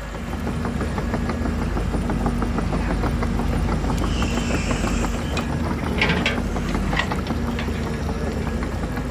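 RC Hitachi ZAXIS hydraulic excavator model driving on its tracks: a steady mechanical running sound with a low hum, one held tone and fast clicking throughout. It starts and stops abruptly.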